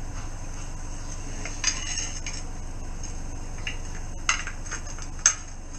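A few sharp clinks and knocks of hard objects being handled, the loudest about five seconds in, over a steady low hum.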